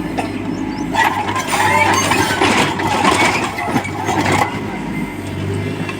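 Diesel engine of a JCB 3DX backhoe loader running while it digs, with a louder, busier stretch of working noise from about a second in until past four seconds.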